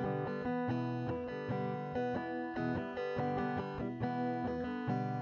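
Background music: plucked guitar notes in a steady stream.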